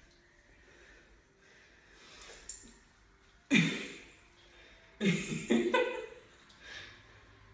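A woman laughing and breathing hard while squatting with a 41 lb poodle across her shoulders: one loud burst about three and a half seconds in, and a second run of quick laughs about five seconds in.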